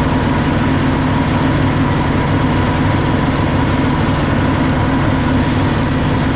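Diesel tractor engine running steadily at working speed with its slasher (rotary mower) engaged.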